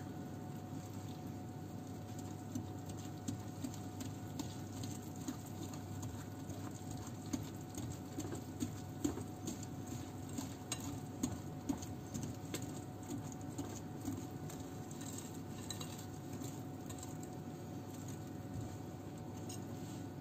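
Wire balloon whisk beating thick cake batter by hand in a glass bowl: an irregular patter of light taps and clicks as the wires strike the bowl and churn the batter.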